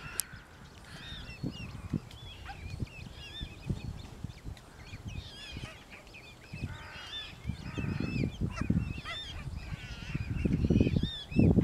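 Mute swan cygnets peeping: a busy run of short, high calls from the brood as they climb the bank. A low rumble builds under them over the last few seconds and is the loudest thing near the end.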